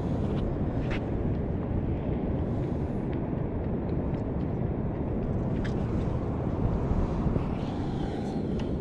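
Steady low outdoor rumble of wind and surf noise on the microphone, with a few faint clicks.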